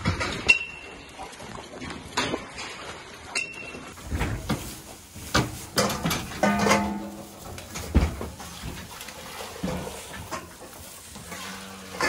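Sharp metal clanks from steel barn gates as cows pass through, a few of them ringing briefly. Then a metal feeding bowl and bucket clink as milk is poured for a calf, with a short calf bleat about six and a half seconds in.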